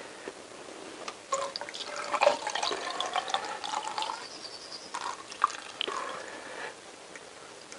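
Fluid pouring from a jug through a plastic funnel into a port of a Honda CBR1000F cylinder head. It starts about a second in and tails off near the end. The fluid is a leak test of the freshly fitted valves.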